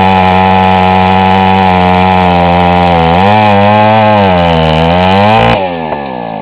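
Two-stroke chainsaw running at high revs, its pitch wavering twice; about five and a half seconds in the throttle is released and the revs fall away toward idle.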